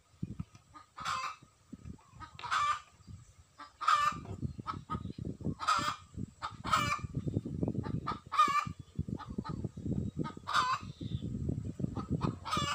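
Chickens clucking: about eight short calls, roughly one every second and a half. A low rumble joins about a third of the way in.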